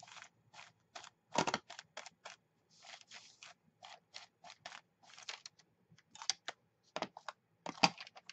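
Ink pad swiped and dabbed back and forth across crinkled notebook paper: a quick, irregular run of short scratchy scuffs, with two louder knocks, one about a second in and one near the end. Paper rustles as a page is lifted near the end.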